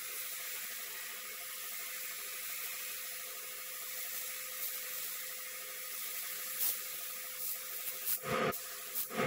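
Compressed-air gravity-feed paint spray gun hissing steadily as it sprays paint, with a few short, louder bursts of hiss near the end.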